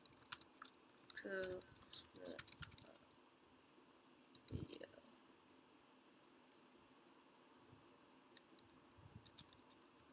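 High-pitched electronic beeping, a single tone pulsing about four times a second and growing steadily louder, which the uploader takes to be a fault in his screen recording. Faint keyboard clicks scattered through it.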